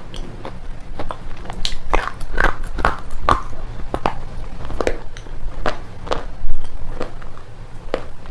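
Red slate pencils being bitten and chewed: a steady run of sharp, crisp crunches, about two a second.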